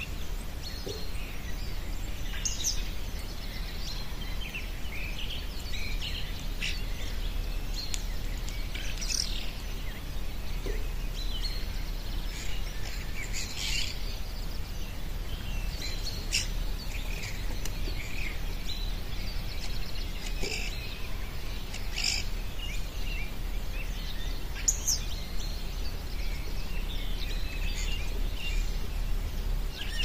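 Wild birds singing in spring: many short chirps and song phrases from several birds, scattered irregularly, over a steady low background rumble.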